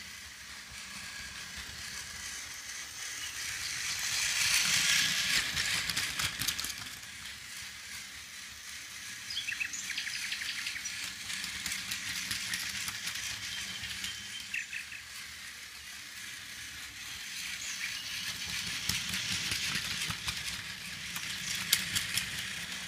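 Battery-powered motorized Thomas the Tank Engine toy train whirring and rattling along plastic track as it pulls its wagons, with a run of small clicks from the wheels and couplings. It gets louder and fades away twice as the train comes past.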